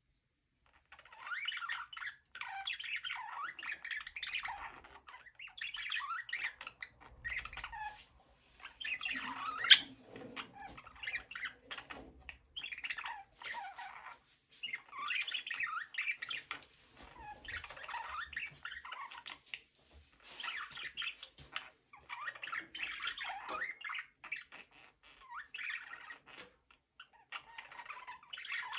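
Budgerigars chirping and warbling in short bouts with brief pauses, with one sharp click about ten seconds in.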